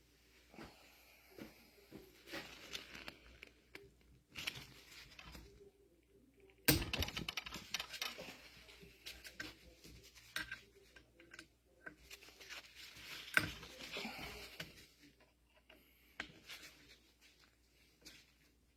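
Irregular clicks, light clatter and rustling of small metal parts and screws being handled and set down during disassembly of a hydraulic valve block, with two sharper knocks, one about a third of the way in and one a little past the middle.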